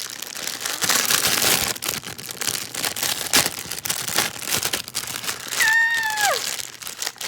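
Plastic packaging crinkling and crackling as a stapler is unwrapped, with many sharp crackles. Near the end comes a short high cry that slides down in pitch.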